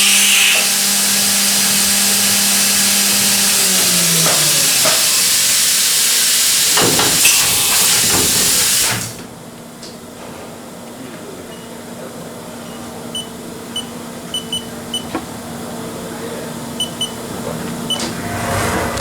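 Milling machine running with a loud steady hiss and a hum that slides down in pitch about four seconds in. The hiss cuts off suddenly about nine seconds in, leaving a quieter background with a few short high beeps.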